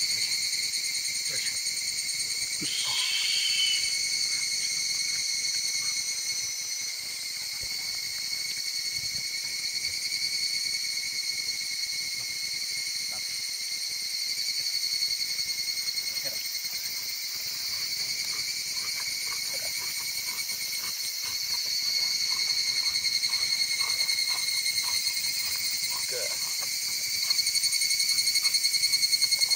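Steady chorus of insects, a continuous high-pitched drone at several pitches at once.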